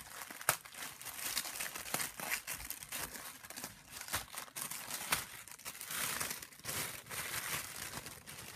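Thin red gift wrapping crinkling and tearing as a small present is unwrapped by hand: a continuous run of crackles with sharp rips, the sharpest about half a second in and again about five seconds in.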